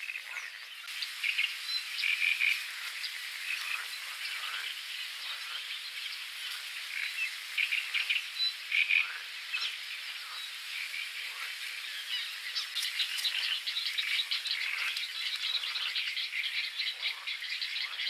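Dense chorus of frogs croaking over one another, with a faster, rattling run of calls setting in about two-thirds of the way through.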